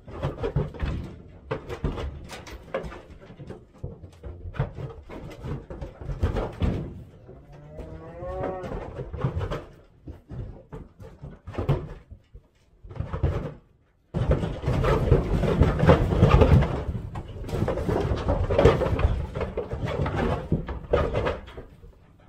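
Black Angus cows and calves clattering out of a livestock trailer, with hooves knocking and thumping on the trailer floor. One cow moos once about eight seconds in. The clatter is heaviest in the second half.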